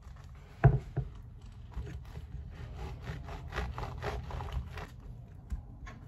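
A knife sawing through a seeded bagel on a wooden cutting board, in a run of short scraping strokes. A sharp knock comes about half a second in.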